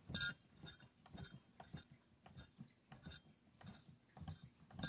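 Faint, irregular metallic clicks and light taps as a screw on an HW30s spring-piston air rifle is turned and backed out by hand, with a sharper click just after the start and another near the end.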